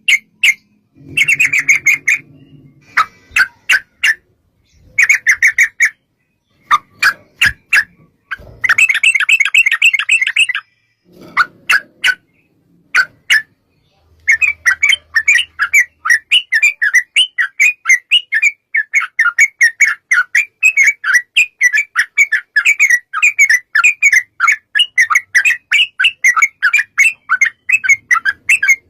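Yellow-vented bulbul (trucukan) singing loud, bubbling phrases. In the first half it gives short bursts with pauses between; from about halfway it breaks into a long unbroken run of rapid notes, the drawn-out rolling song known as "ropel panjang".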